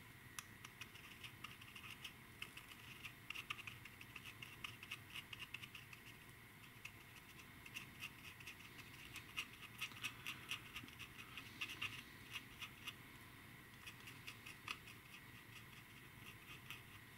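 Faint, rapid scratching of a damp paintbrush scrubbed over a painted plastic model cockpit floor, wearing through the paint to chip it.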